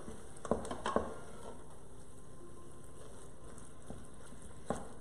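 Meat browning and sizzling in a pot while it is stirred, the utensil knocking against the pot a few times about half a second to a second in and once more near the end.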